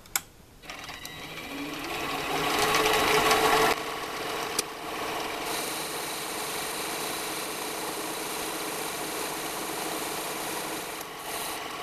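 Small benchtop metal lathe starting up: a click, then the motor and spindle wind up in pitch over about three seconds before settling into a steady running hum.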